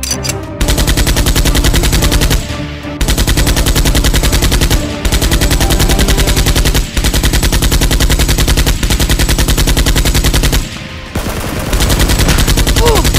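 Rapid automatic machine-gun fire, a dubbed gunfire sound effect standing in for the toy blasters, in about six long bursts of roughly two seconds each with brief gaps between.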